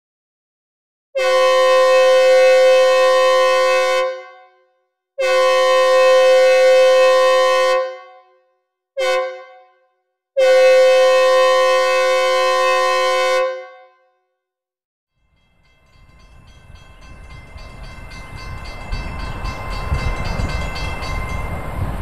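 Synthesized recreation of a Nathan K2 five-chime locomotive horn with reverb, sounding two long blasts, one short blast and a final long blast: the grade-crossing signal. About a second and a half later a low rumble fades in and grows steadily louder, the start of a simulated approaching train.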